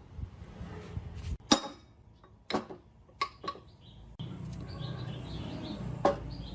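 Sharp metallic clinks and knocks of parts or tools being handled, five or six spread out, over a low steady hum that drops out for a few seconds and comes back.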